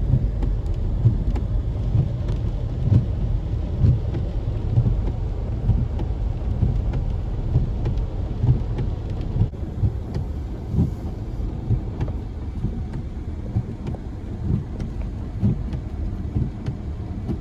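A car driving along a road, heard from inside the cabin: a steady, uneven low rumble of road and engine noise with frequent soft bumps.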